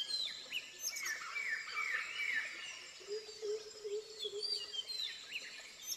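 Several wild birds calling: a run of short repeated whistled notes and high chirps. A low, steady note sounds for about two seconds midway.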